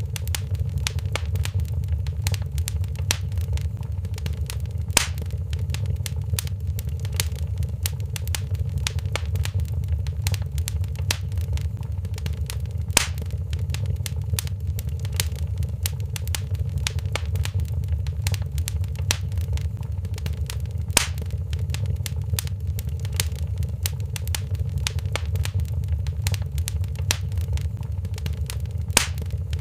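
Wood fire in a fireplace crackling steadily over a low rumble, with many small crackles and a few louder pops, about one every eight seconds.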